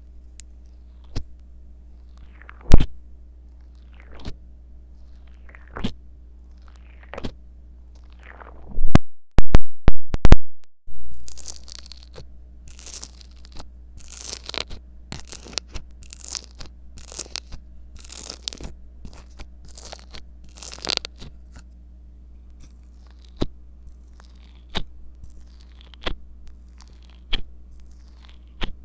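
Microphone head pressed into slime and foam beads, picking up close contact sounds: separate sticky pops at first, a few very loud clipped knocks about nine to eleven seconds in, then dense crackling crunch from the foam beads, and sparser pops from the slime near the end.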